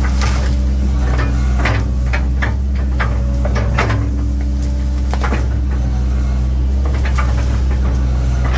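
Diesel engine of a 1997 Link-Belt 2700 excavator running steadily under work, with repeated sharp clunks and cracks scattered throughout as the machine moves wood and brush.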